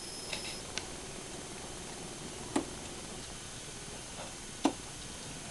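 Darts thudding into a dartboard: two short knocks, about two seconds apart, the second a little louder.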